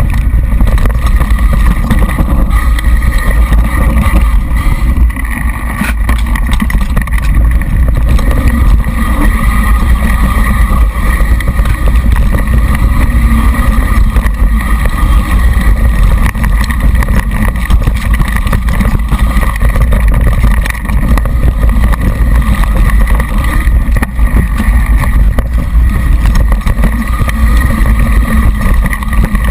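Mountain bike riding a dry dirt trail, heard from a seat-post GoPro: a steady loud rumble of rushing air and tyres, thick with continual rattling and knocking from the bike and camera mount over the rough ground.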